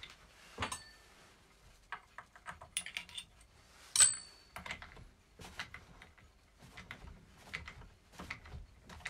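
Small metallic clicks and taps of a tool and wheel nut as a wheel is fastened onto a nitro RC car's axle, with one sharper ringing metal clink about four seconds in.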